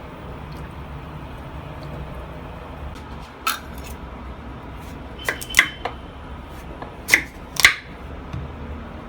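Several sharp clicks and clinks of hard kitchenware, like a spoon or dish being handled, over a steady low background hum: one about a third of the way in, a close pair a little past halfway, and another close pair near the end.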